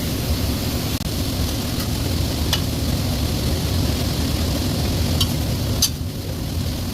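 Food sizzling in a hot pan over the steady low rumble of a commercial kitchen, with a few sharp clinks of utensils.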